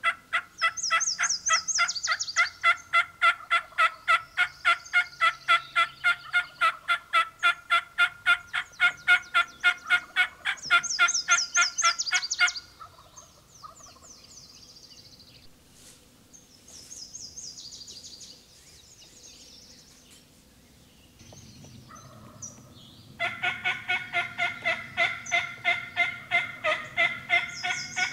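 Hunter's turkey call worked hard in a long, rapid run of hen-turkey yelps, about three notes a second, to draw in gobblers that will not come. The run breaks off after about twelve seconds, and a second loud run starts a few seconds before the end.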